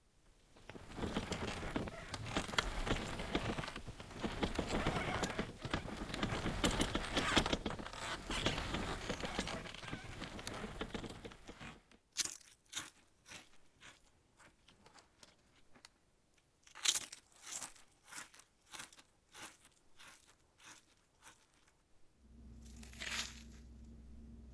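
Dense crackling and crunching, like something being crumpled or torn, for about twelve seconds. Then scattered single clicks and knocks, and near the end a low steady hum.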